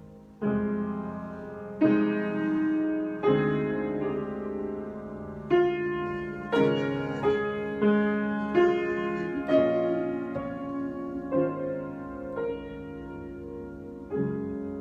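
Piano improvisation: slow chords struck one after another, about every one to two seconds, each left to ring and fade.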